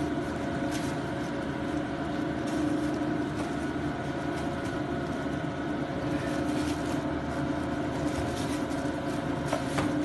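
Steady machine hum with several constant tones, from a motor running in the room, under a few faint taps and rustles as a knife works a whole milkfish on a plastic sheet.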